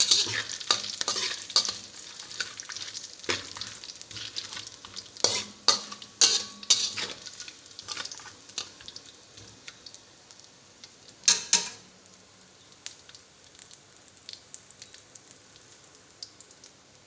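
Whole spices sizzling in hot ghee and oil in a pan, stirred with a utensil that scrapes against the pan in short strokes. The strokes come often in the first half, with the loudest around the middle, then stop, leaving a low sizzle.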